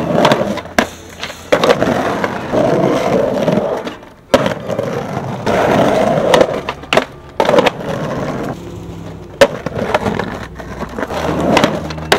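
Skateboard wheels rolling over rough, cracked concrete, broken by several sharp clacks and knocks of the board, two of them especially loud.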